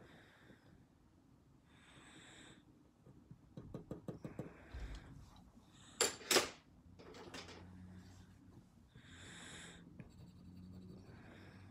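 Faint scratching of a mechanical pencil on paper, mixed with soft breathing close to the microphone. A flurry of small clicks comes a few seconds in, followed by two sharp knocks about six seconds in.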